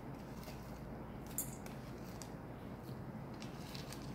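Chopped almonds being sprinkled onto crushed baked puff pastry in a steel bowl: a few faint soft ticks and rustles over a steady low hum.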